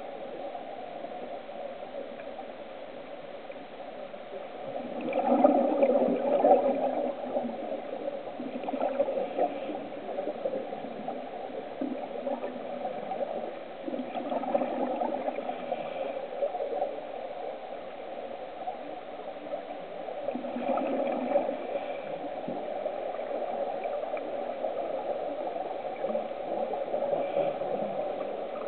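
Scuba diver's regulator breathing heard underwater: gurgling surges of exhaled bubbles about every six seconds, over a steady muffled rush of water.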